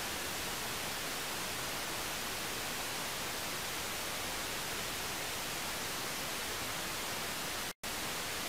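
Steady hiss of static on an old recording, with no other sound in it, cutting out completely for an instant near the end.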